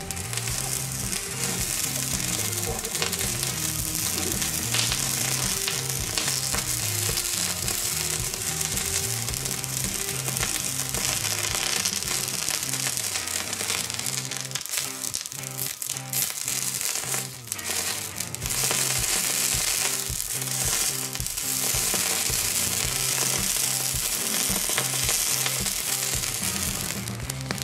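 Red-hot metal ball sizzling and crackling as it burns into a plastic toothpaste tube and the toothpaste beneath it, over background music.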